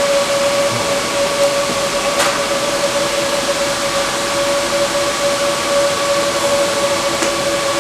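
Cooling fans of a GPU mining rig running steadily: a loud, even whoosh with a constant hum underneath.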